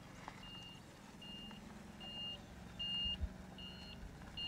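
A Cat forklift's backup alarm beeping steadily, a little more than once a second, one high tone per beep. The beeps get louder about three seconds in, over the low steady hum of the forklift's engine.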